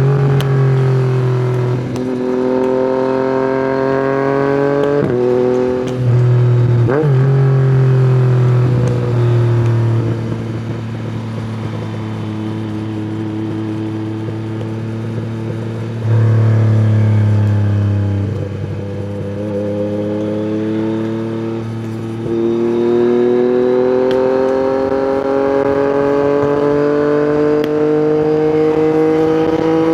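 Yamaha MT-09 three-cylinder engine through an Akrapovic exhaust, revving up through the gears with sharp steps at the shifts. Through the middle the revs fall away and the engine runs quieter on a trailing throttle, then from about two-thirds of the way in it pulls hard again with the pitch climbing steadily to the end.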